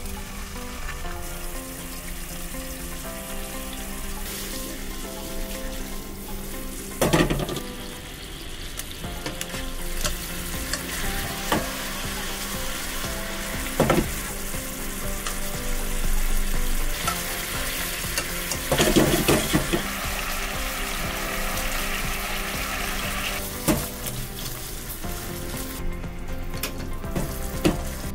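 Rolled pork belly pieces sizzling in a soy sauce glaze in a non-stick frying pan, with a few louder knocks in the pan. The sizzling stops near the end.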